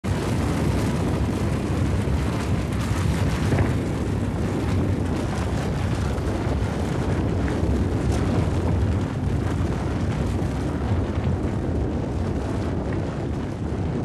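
Steady, deep rushing roar, a continuous rumble with no separate strikes or tones, fitting wind and snow sweeping over snowy mountain cliffs.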